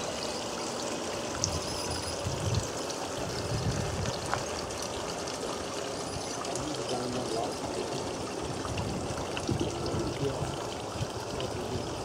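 Water trickling and splashing steadily in a garden railway's rock-lined pond water feature.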